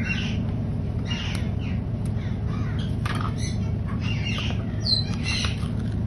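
Parrots squawking, many short calls one after another, over a steady low hum.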